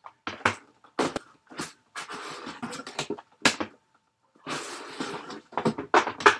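Shrink-wrapped cardboard card boxes being pulled out of a shipping case cut open at the bottom: a series of sharp knocks as boxes hit each other and the desk, with stretches of scraping and rustling as they slide out.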